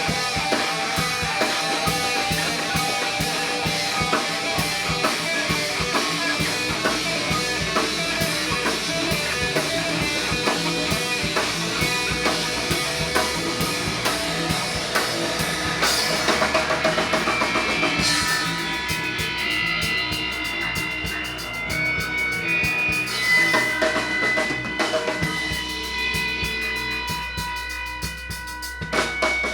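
Instrumental rock music: drum kit and guitar playing with a steady beat, thinning out about two-thirds of the way through to held notes and sparser drum hits.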